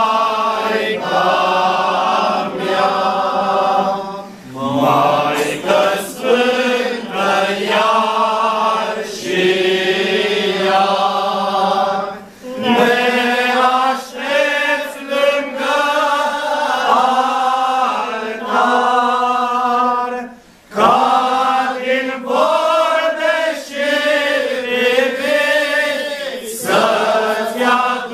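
Male choir of Orthodox monks singing a Romanian devotional hymn (pricesnă) a cappella. There are short breaks between phrases about 4, 12 and 21 seconds in.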